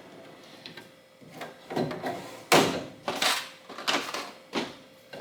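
Objects being handled and moved about: quiet shuffling at first, then a series of short clunks and scrapes in the second half.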